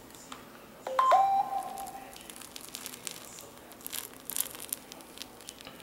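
Adhesive crackling and tearing as the fused glass-and-LCD screen of an iPad Air 2 is pried up and lifted off its frame. There is a short ringing tone about a second in, then a run of small clicks and crackles around four seconds in.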